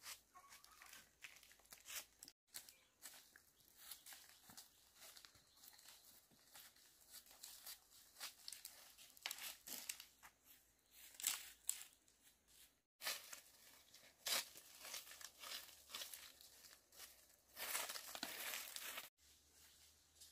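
Faint, irregular scrapes and rustles of yard work, beginning with a broom sweeping bare dirt, with a longer run of rustling near the end.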